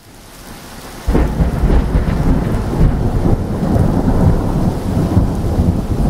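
Thunderstorm: a hiss of rain swells, a sudden loud thunderclap comes about a second in, and then a continuous low rumble of thunder goes on over the rain.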